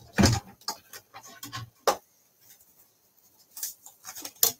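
Manual die-cutting machine being worked and its stack of cutting plates handled: a few sharp knocks and scrapes, a quiet gap partway through, then a few lighter clicks near the end.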